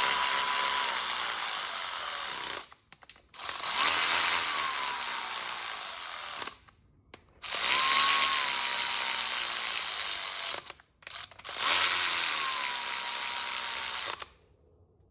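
Power ratchet running bolts down in four runs of about three seconds each, with short pauses between them; each run is a loud mechanical rattle with a motor whine.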